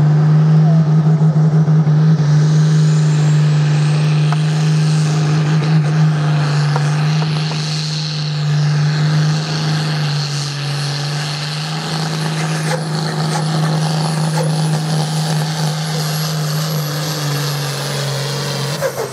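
Pulling tractor's engine running hard at high, steady revs through a pull, with a thin high whine climbing slowly in pitch over the first few seconds. It gets a little quieter from about eight seconds in.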